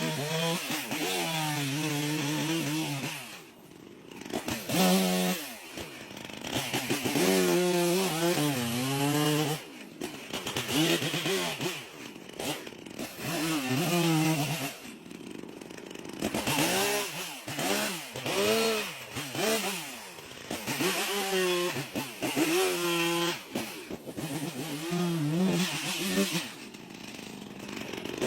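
Chainsaw engine revving up and down over and over, its pitch climbing and falling, dropping back to a low idle now and then between bursts.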